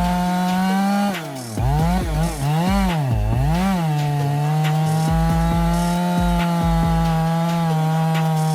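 Chainsaw running at high revs with a steady high pitch; a little after a second in, the pitch dips and recovers several times before settling back to a steady run.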